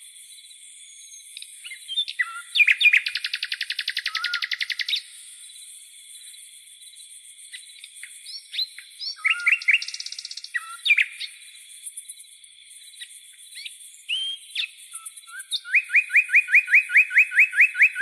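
Crickets trilling steadily at night while a songbird sings varied phrases over them. The bird gives a fast rattling trill a few seconds in, scattered whistled notes midway, and near the end a rapid run of repeated rising notes, about seven a second.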